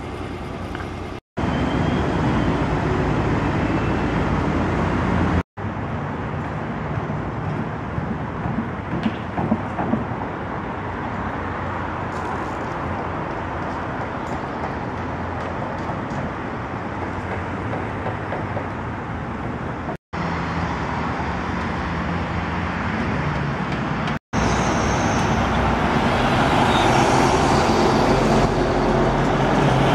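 Steady outdoor road-traffic noise, vehicles running past on a city road, louder near the end when a heavy truck passes close by. The sound drops out for an instant four times.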